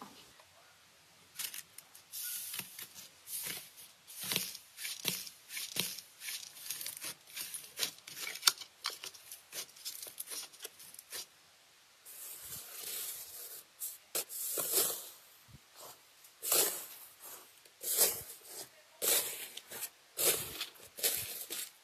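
Hands squeezing and kneading slime, making irregular sticky crackles and clicks. About halfway through it changes to a hand pressing into slime studded with foam beads, with louder, sharper crackling pops.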